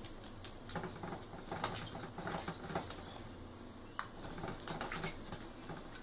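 White-eyed conure bathing, flapping its wet wings in a shallow dish of water: two spells of quick, irregular splashing and patter, with a sharp tap about four seconds in.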